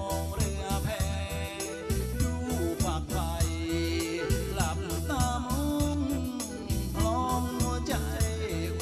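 Live Thai band music with a steady drum and bass beat and a wavering melody over it.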